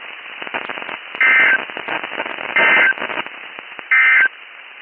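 Three short, identical, warbling data bursts of the Specific Area Message Encoding (SAME) end-of-message code on NOAA Weather Radio, about a second apart, over radio static. They mark the end of the broadcast alert message.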